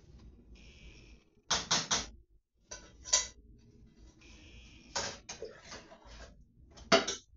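Kitchen clatter: sharp knocks and clinks of things being handled and set down, three quick ones about a second and a half in, then single ones around three, five and seven seconds in. A faint high hiss comes and goes between them.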